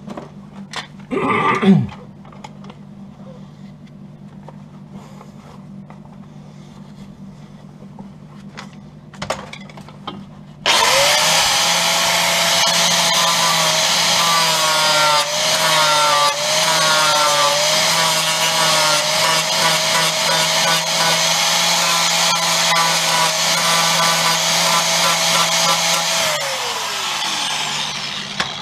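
Angle grinder working on the welded steel wing, starting abruptly about ten seconds in with a steady whine and a dense grinding noise. About sixteen seconds later it switches off and the whine falls away as the disc spins down. Before it starts there are only a few light knocks and handling sounds.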